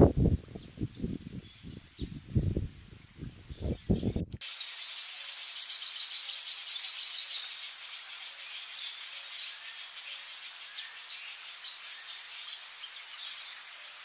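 Irregular low rumbles and thumps for the first few seconds. After a sudden cut, insects chirping in a rapid, pulsing trill, with a few bird chirps over a steady outdoor background.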